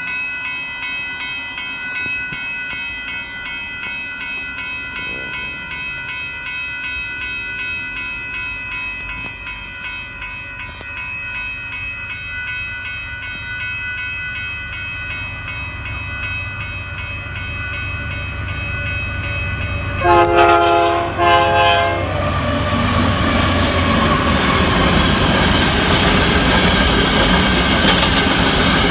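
A grade-crossing bell rings steadily while a Union Pacific freight train approaches with a growing rumble. About twenty seconds in, the locomotive horn sounds two short blasts. Then the locomotive and its hopper cars pass loudly, engine and wheels running.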